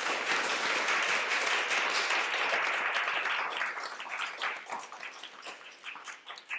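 Audience applauding: a dense round of clapping for the first three or four seconds that then thins into scattered claps and dies away.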